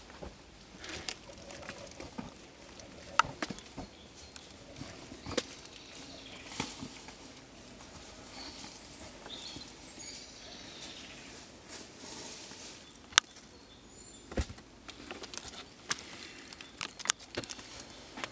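Footsteps and rustling in the woods, broken by scattered sharp snaps and knocks, with a few faint bird chirps about halfway through.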